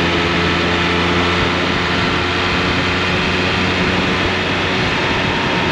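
Triumph Speed Triple 1200 RS's inline three-cylinder engine running at a steady cruise, its note holding even, under a steady rush of wind noise.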